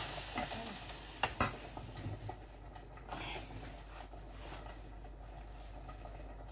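The end of water being poured into a stainless-steel cooking pot, then two sharp clinks against the pot about a second and a half in, followed by faint kitchen clatter.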